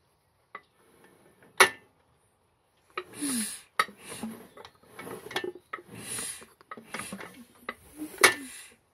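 Sturmey-Archer engine turned over by hand with its Wico magneto firing: a few sharp clicks as the impulse coupling snaps and sparks a test plug, loudest about one and a half seconds in and near the end, among rubbing and handling noise. The sparking shows the rebuilt magneto working.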